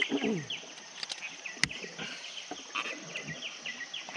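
Insects and birds chirping in many short, repeated calls over a steady high insect drone, with a short call falling in pitch right at the start. One sharp click comes about a second and a half in.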